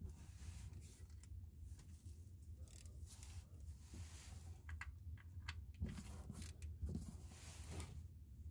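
Ratchet clicking faintly in short irregular runs as a 17 mm socket tightens the engine oil drain bolt.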